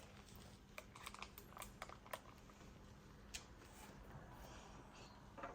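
Near silence: quiet room tone with scattered faint clicks and taps.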